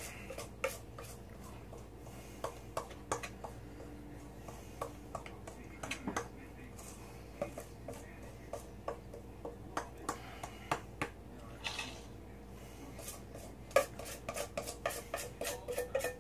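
A utensil scraping and clinking against a stainless steel mixing bowl as thick cornbread batter is scraped out into a cast iron skillet. Scattered sharp clicks and scrapes thicken into a quick run of them near the end.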